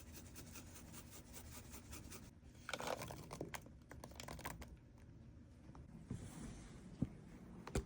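Crinkling, crackling handling noises in a kitchen: a quick run of small clicks and crackles for the first few seconds, then softer rustling, with a sharp knock near the end.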